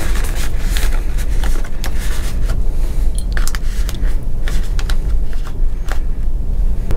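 Cardboard toiletry box being slid open, with short rustles and clicks as the small bottles inside are handled, over the steady low rumble of a Mk5 sleeper carriage running on the rails.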